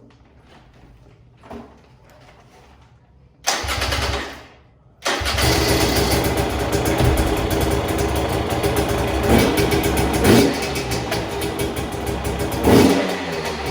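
A 2020 Husqvarna TE250i's 250 cc two-stroke engine is started, with its stock silencer still on. About three and a half seconds in comes a short burst; the engine catches and keeps running from about five seconds in, idling with a few quick throttle blips.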